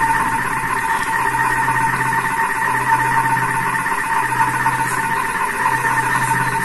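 Vorwerk Thermomix running steadily through a timed cooking step, its motor giving a constant whine over a low hum.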